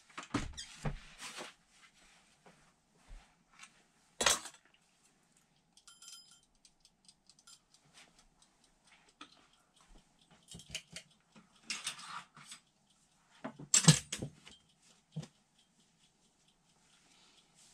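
Small objects and clothing being handled in a small room: scattered clicks, clinks and rustles, with a sharp knock about four seconds in and a louder burst of rustling and clatter near fourteen seconds.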